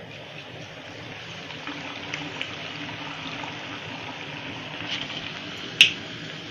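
Hot oil sizzling steadily around a gharge (sweet pumpkin puri) deep-frying in a steel kadhai, with a few small crackles. Near the end comes one sharp metallic clink as the wire strainer holding the puri is set down on a steel plate.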